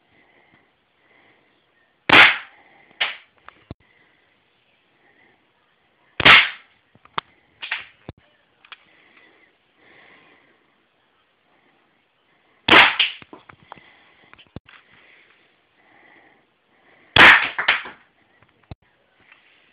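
Hand-cocked Taurus PT92 airsoft pistol with a metal slide firing four single shots, about four seconds apart, at a cardboard box target. Each sharp snap is followed by a few lighter clicks.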